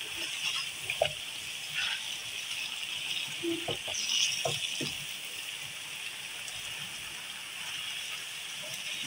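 Potato and eggplant chunks sizzling in oil and masala in a pot as they are stirred with a slotted spoon, a steady hiss with a few clacks and scrapes of the spoon against the pot in the middle.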